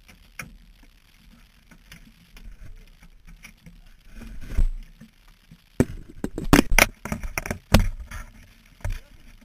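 Knocks and clattering inside a rally car's cabin as the crew move about to climb out after a rollover. Scattered light knocks build to a run of loud sharp bangs about six to eight seconds in.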